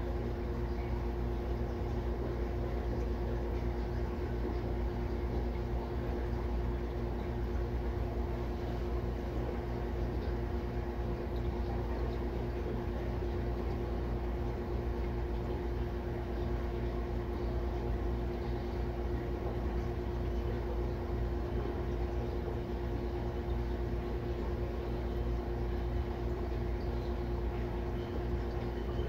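Aquarium filter motor humming steadily, with a constant low tone over a low rumble.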